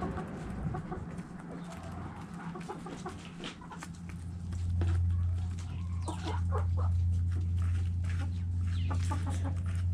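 Backyard chickens clucking in short calls, with many small sharp ticks, over a steady low hum that grows louder about halfway through.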